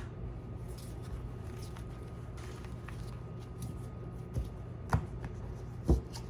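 Oracle cards being handled on a table: light scattered clicks and rustles, with two louder knocks near the end, over a steady low hum.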